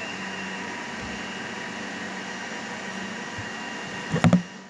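A steady whirring hum with a few constant tones, like a small motor or fan running, broken just over four seconds in by a short loud rattling burst, after which the hum drops away.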